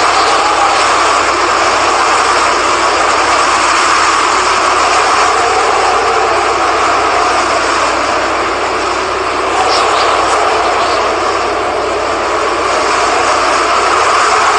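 Steady, loud roar of strong hurricane-driven wind, swelling and easing slightly, with a short faint high chirp about ten seconds in.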